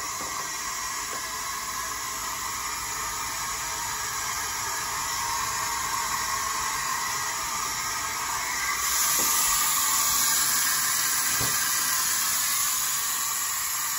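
Water running in a steady stream from a kitchen faucet into the sink and down the newly fitted drain, a continuous rush that gets louder about nine seconds in.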